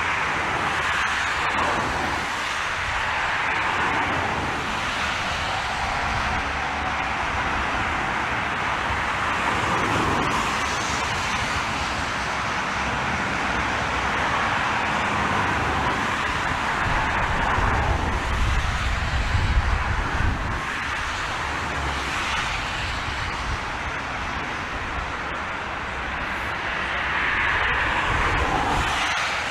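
Airliner engines running on a crosswind landing approach, with gusts of wind rumbling on the microphone.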